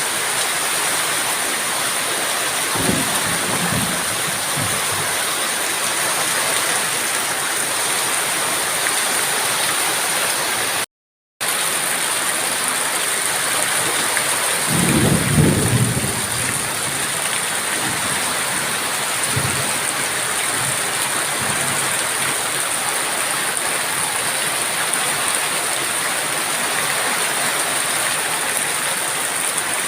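Heavy rain falling in a steady hiss, with two short low rumbles about 3 and 15 seconds in. The sound drops out briefly about 11 seconds in.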